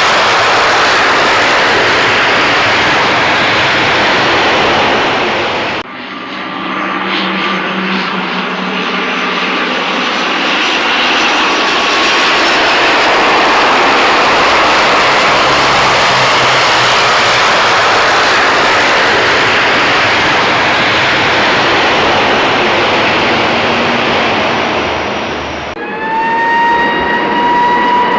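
Loud jet aircraft engine noise, a dense rushing sound with a faint whine through it. It breaks off abruptly about six seconds in and again near the end. After the second break, a clear engine whine rises in pitch and levels off as the engines spool up.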